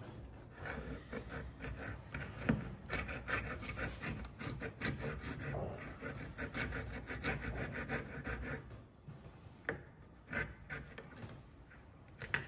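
Coping saw cutting waste out of a dovetail socket in timber: a run of quick, short, even strokes that stops about three-quarters of the way through, followed by a few light clicks and knocks.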